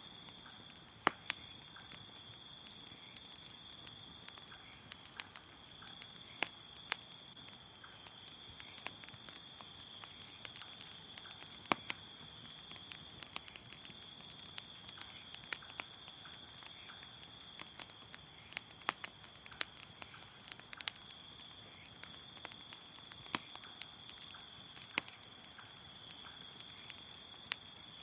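Crickets chirping in a steady high trill. Irregular sharp pops and crackles from a wood bonfire come every second or two.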